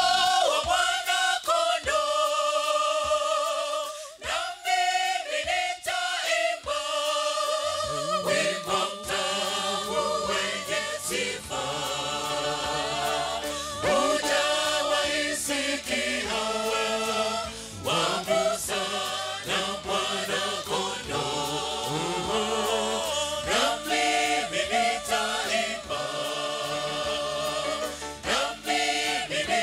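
A mixed gospel choir singing a Swahili song live through handheld microphones. A low bass part joins about eight seconds in.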